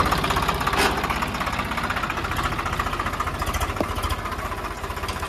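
Swaraj 744 FE tractor's three-cylinder diesel engine running steadily at idle with an even, rapid knock.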